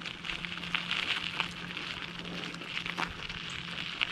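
Bicycle rolling along, its tyres crackling and ticking irregularly over the road surface.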